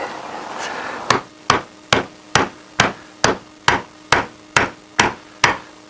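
Hammer blows on a steel socket used as a drift, driving the old bearing out of a 1988 Honda CBR1000F's aluminium rear sprocket carrier. About eleven even strikes, a little over two a second, starting about a second in.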